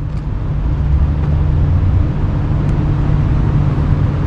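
Steady low rumble of a moving road vehicle, with a constant engine hum and road noise.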